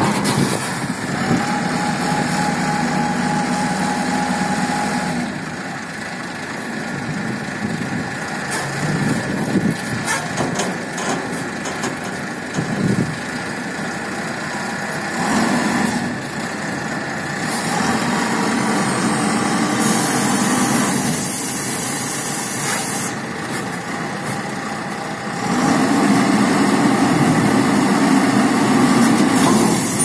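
Engine of a self-loading concrete mixer running steadily, working harder in two louder stretches, about a second in and again near the end, as its hydraulic loading bucket scoops gravel and raises it toward the drum.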